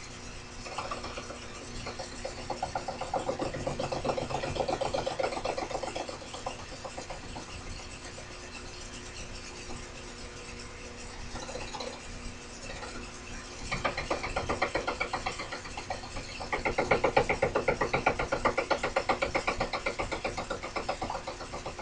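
Mini milling machine cutting carbon-fibre-reinforced plastic: a steady motor hum, with fast chattering stretches as the cutter bites into the work, three times, loudest near the end.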